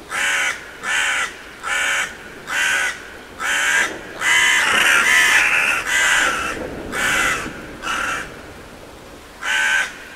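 Crows cawing, a harsh call about once a second, with several calls overlapping in the middle as if from more than one bird.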